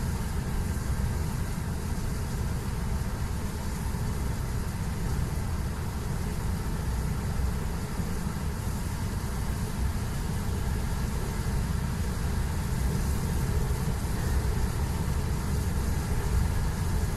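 Steady low drone of a semi-truck's diesel engine heard from inside the cab, with the hiss of its tyres on wet asphalt, unchanging throughout.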